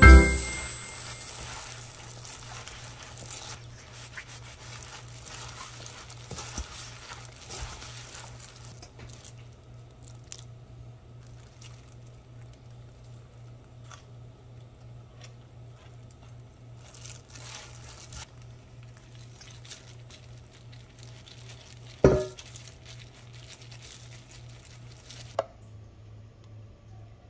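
A plastic-gloved hand tossing scallions in thick chili seasoning in a stainless steel bowl: faint crinkling of the glove and wet squishing, mostly in the first several seconds, over a steady low hum. A sharp knock comes about 22 seconds in and a smaller one about three seconds later.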